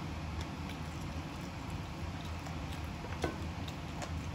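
Chewing and mouth clicks of someone eating a buffalo chicken wing, small scattered clicks over a steady low hum, with one sharper click about three seconds in.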